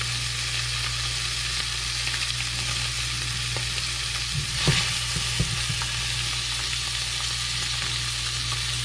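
Blackened fish fillets frying steadily in hot oil in a cast-iron skillet, an even sizzle. About halfway through there are a few brief knocks and a scrape as the heavy skillet is shifted and turned on the glass-top stove.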